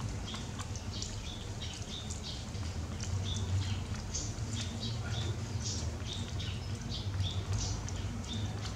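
A baby monkey biting and chewing boiled corn on the cob: many quick, irregular small clicks and crunches, over a low steady hum.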